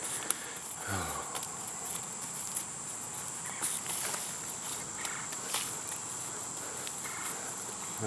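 Steady high-pitched drone of insects chorusing, with scattered scrapes and clicks of a hand digger working dry, stony soil.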